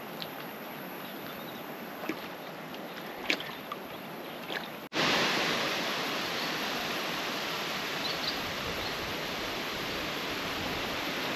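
A steady rushing noise with a few faint ticks. About five seconds in it cuts off abruptly and comes back louder and brighter, then holds steady.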